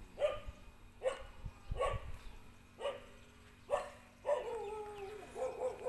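Small puppy barking: five short high yelps about a second apart, each dropping in pitch, then a longer drawn-out call falling slowly, followed by a few quicker yelps near the end.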